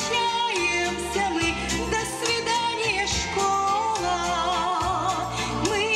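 A woman singing a graduation waltz into a microphone, her held notes wavering with vibrato, over instrumental accompaniment with a steady bass line.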